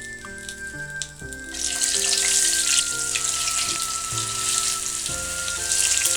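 Food sizzling in hot oil in a pan, starting suddenly about a second and a half in.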